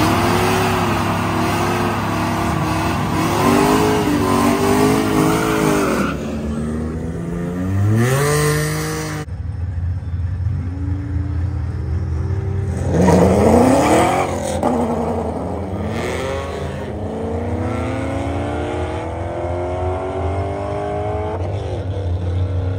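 Drag car engines at full throttle: first revving hard up and down on the line, then a launch about thirteen seconds in, the note climbing steeply and dropping back with each gear change as the cars pull away down the strip.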